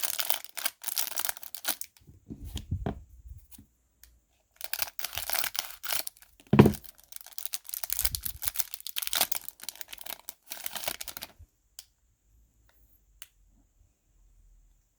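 Clear plastic wrapper of a trading-card pack crinkling and tearing as it is ripped open, in bursts over the first eleven seconds, with one sharp knock about six and a half seconds in. Then it goes quiet except for a few faint ticks.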